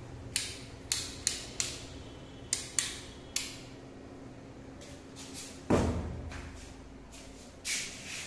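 Irregular sharp clicks and knocks: about seven in the first three and a half seconds, a louder, fuller thump a little past the middle, then two more knocks near the end.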